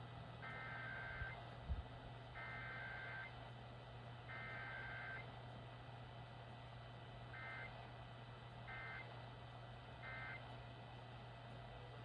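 Emergency Alert System Required Weekly Test: the SAME header, three bursts of data tones about two seconds apart, then three short end-of-message bursts, played through a small portable radio's speaker over a steady low hum. A single sharp knock comes about two seconds in.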